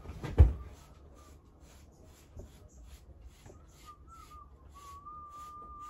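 Hairbrush being worked through short hair with a quick, even scratching rhythm of about four strokes a second. There is a thump about half a second in, and a faint, thin, wavering whistled tone through the second half.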